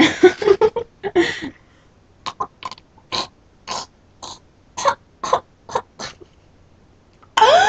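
A girl's short vocal outburst, then a string of about a dozen short, breathy vocal sounds spread over some four seconds, with a loud rising squeal near the end.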